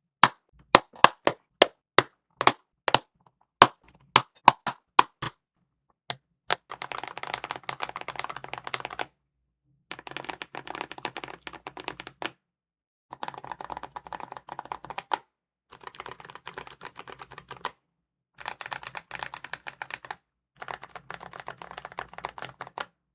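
Typing on a mechanical keyboard fitted with tactile switches. It starts with single keystrokes, each a sharp clack. About six seconds in, rapid typing begins and comes in about six runs of roughly two seconds each, with short pauses between.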